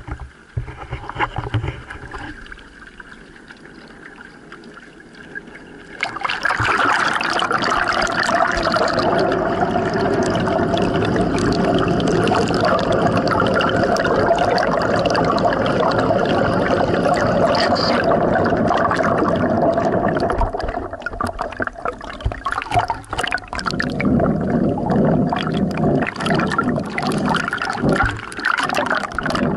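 Water rushing and gurgling past a pedal boat's hull and propeller, picked up by a camera at and below the waterline. Fainter at first, much louder from about six seconds in, and choppier with splashing and churning bubbles near the end.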